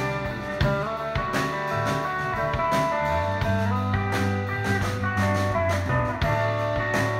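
Live band playing an instrumental passage: an electric bass line and drum kit, with a snare drum struck with sticks by a standing player, and held melodic notes sustained over the top.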